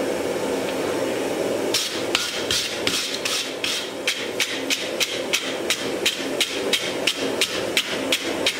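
Hand hammer striking red-hot wrought iron on an anvil, a run of quick even blows at about three a second that starts about two seconds in. A steady rushing noise sits underneath throughout.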